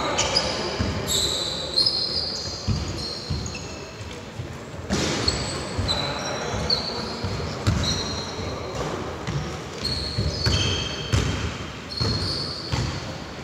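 Basketball being dribbled on a hard court, with sneakers squeaking sharply on the floor again and again through the play.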